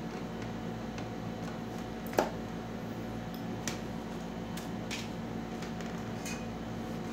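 Sparse clicks and light taps of small parts and tape being handled and set down on a TV panel's back, with one sharper knock about two seconds in, over a steady electrical hum.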